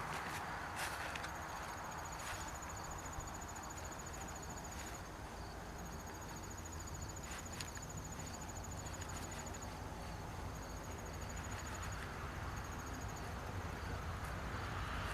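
Insects calling in long trains of rapid, high-pitched pulses lasting a few seconds each, with short gaps between, over low background rumble. A few faint clicks sound along the way.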